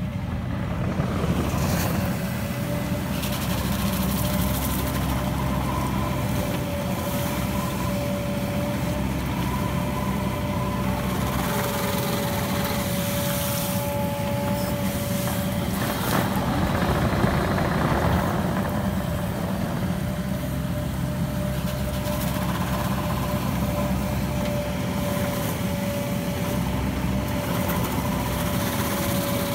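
Cat 308E mini excavator's diesel engine running steadily under hydraulic load while it works a mowing bucket along a ditch bank, with a steady whine over the engine.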